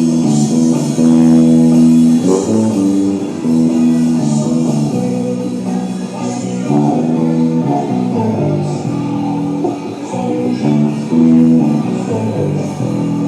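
Tagima TBM-5 five-string electric bass being played: a melodic line of plucked notes, each held and ringing, with the pitch changing every half second to a second.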